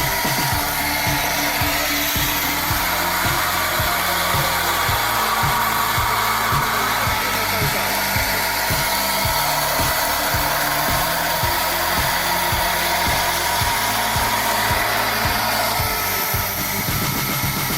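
Chainsaw running steadily, with background music carrying a steady beat underneath.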